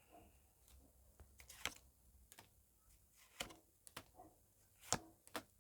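Near silence in a small room, broken by a few faint, scattered clicks and taps.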